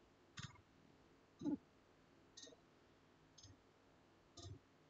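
A computer mouse clicking faintly, about five times, roughly once a second, against near silence.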